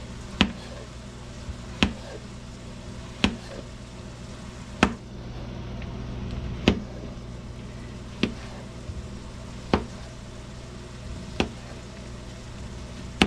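Chef's knife slicing porcini (king bolete) mushrooms, each stroke ending in a sharp tap of the blade on a plastic cutting board, about every second and a half, nine times in all. Under it is a steady background of ground beef frying in a pan.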